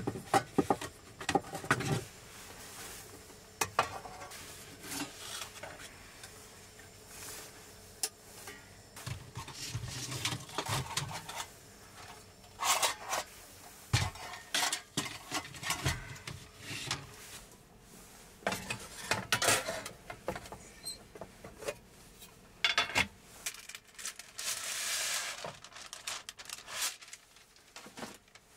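Camping cookware and utensils being handled: scattered knocks and metallic clinks as the gear is lifted out of a plastic folding crate and set down, with rustling in between.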